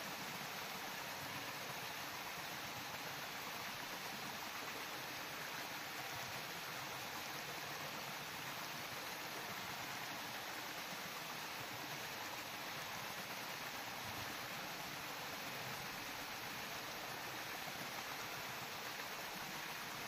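Small waterfall pouring over rock: a steady, even rush of falling water.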